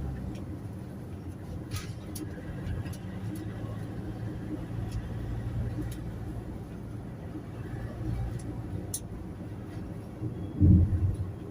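Toyota Hiace Commuter van driving in city traffic: a steady low rumble of engine and road, with a few sharp clicks and one loud low thump about ten and a half seconds in.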